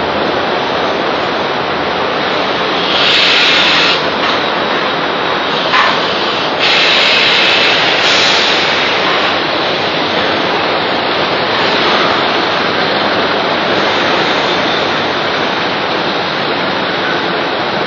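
Steady loud roar of foundry molding-line machinery, with two louder hissing bursts about three and seven seconds in.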